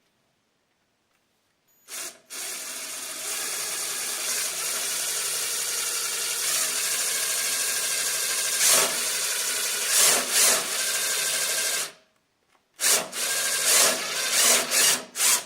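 Power drill driving a self-tapping screw into the snowblower's housing: it runs steadily for about ten seconds, stops, then gives several short bursts as the screw is snugged down.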